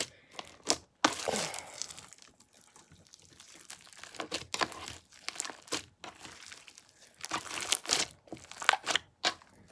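Hands kneading and folding a big mass of mixed slime and putty, giving irregular squishes and crackling pops.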